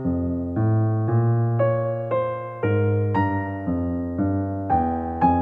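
Background music: an electric piano playing a slow, even melody over low bass notes, about two notes a second.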